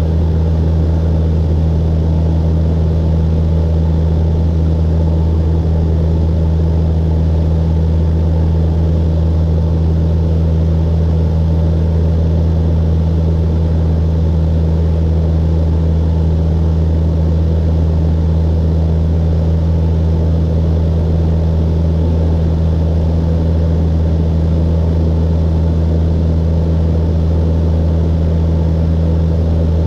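Cessna 172's piston engine and propeller running at a steady cruise setting, heard inside the cabin as a loud, even, low drone that does not change.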